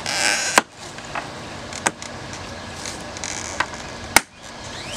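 Plastic aftermarket grille being pressed into a Mustang bumper cover: plastic scraping at the start, then several sharp snaps as its clips seat in the brackets, the loudest near the end.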